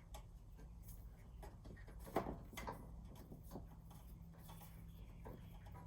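A few faint clicks and knocks, the sharpest about two seconds in, over a steady low hum.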